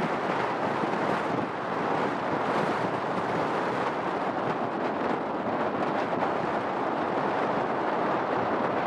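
Airbus A350's Rolls-Royce Trent XWB jet engines running with a steady roar as the airliner decelerates on the runway after landing.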